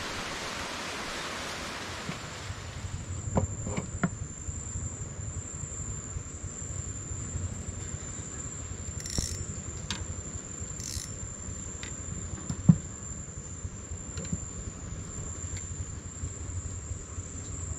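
A steady high-pitched insect call sets in about two and a half seconds in, after a short stretch of rushing noise. A few light clicks sound over it, and one sharp knock comes about two-thirds of the way through.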